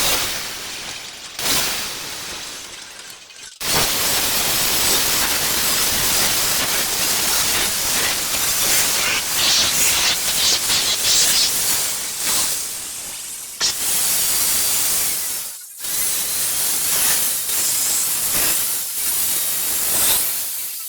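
A power woodworking tool running on wood with a loud, dense hiss. It starts in earnest a few seconds in, pauses briefly twice in the second half, then carries on.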